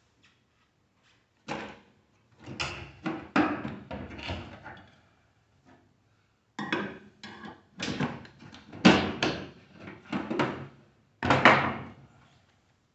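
Sheet-metal clanking and rattling from a microwave oven being dismantled by hand, in several clusters of knocks and scrapes as parts are worked loose from the steel chassis.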